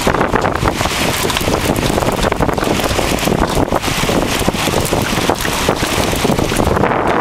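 Wind buffeting the microphone in gusts over the rush of water along a small sailboat's hull as it sails fast in a stiff breeze.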